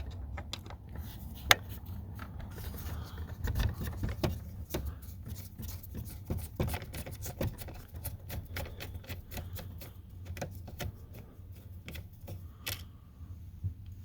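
Irregular small clicks, taps and light scraping from hand tools and plastic trim as screws are backed out and the steering-column parts of a Ford F150 are worked loose, over a steady low hum.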